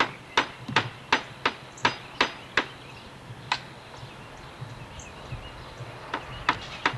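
Hammer blows on loose wooden boards, about three quick strikes a second for the first two and a half seconds, one more a second later, a pause, then a few more strikes near the end.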